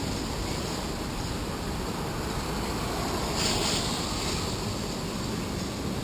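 Traffic on a rain-soaked street: a steady rumble with tyres hissing on wet asphalt, swelling briefly about three and a half seconds in as a car passes close by.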